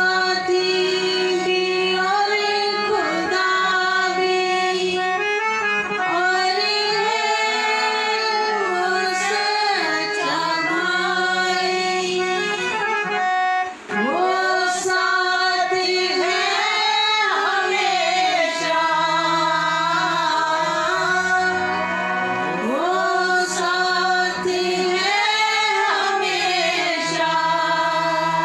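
A woman singing a devotional hymn in a solo voice, with a steady instrumental accompaniment of held notes beneath her, with a brief pause about halfway through.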